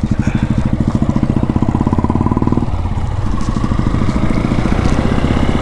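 Royal Enfield Classic 350's single-cylinder engine running while riding, a steady rapid pulse that dips briefly about three seconds in and then picks back up.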